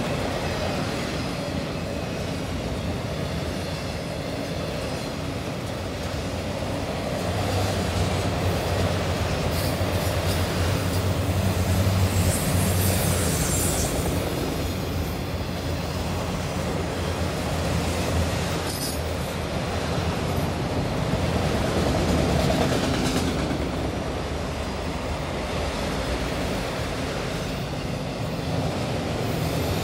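Freight train of autorack cars rolling past close by: a steady rumble of steel wheels on the rails with clacking from the wheels. There is a brief high screech from the wheels about halfway through.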